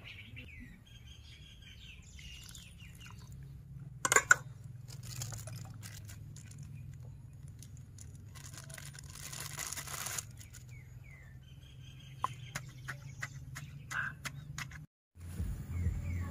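Seasoning added to a stone mortar by hand: a few sharp clinks of a spoon against the mortar about four seconds in, then dry white granules poured in with a soft hiss lasting about a second and a half, over a low steady hum and faint bird chirps. Music starts just before the end.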